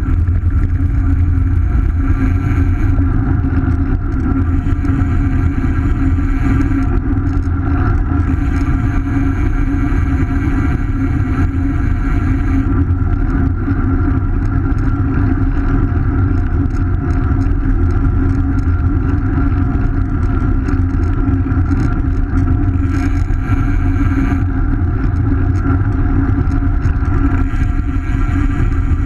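Steady wind buffeting and tyre rumble picked up by a rear-facing action camera mounted on a road bike rolling along an asphalt road, with a faint high hiss that comes and goes.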